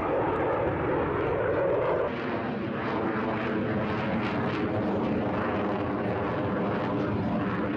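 F-16 fighter jet engine running, a steady rushing drone with steady tones through it; about two seconds in the sound shifts as a loud mid-range band drops away.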